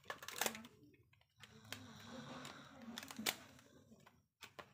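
Hands handling a smartphone while a rubber band is pulled off it: scattered light clicks and taps of fingers and plastic, the sharpest about half a second in and about three seconds in.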